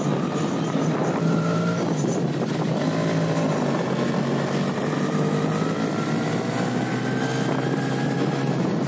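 A motorbike engine running while riding along a road, its pitch drifting up and down a little with the throttle.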